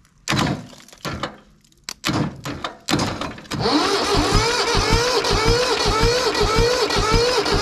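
Starter motor cranking the two-cylinder diesel engine of a long-abandoned Swaraj tractor on a cold start. A whine rises and falls with each compression stroke, about five times a second, for about four seconds, and then cuts off. A few heavy knocks come before the cranking.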